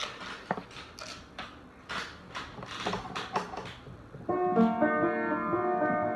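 Rustling and knocking, then about four seconds in a piano begins playing, with several notes sounding together.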